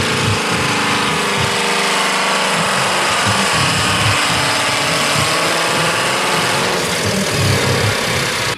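Diesel engine of a modified Ford pulling tractor running under heavy load on a pull, a loud, steady drone at a near-constant pitch.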